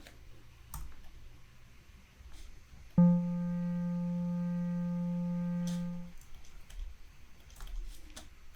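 A single sustained note from a software synthesizer built in Max/MSP, starting sharply about three seconds in and held at a steady pitch for about three seconds before stopping, played while its filter is being tested. Faint clicks come before and after the note.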